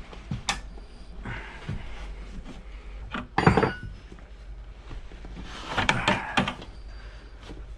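Tire irons and a motorcycle wheel knocking and scraping as a tire is levered on by hand: a few separate thunks, the loudest about three and a half seconds in, and a cluster of knocks around six seconds, over a steady low hum.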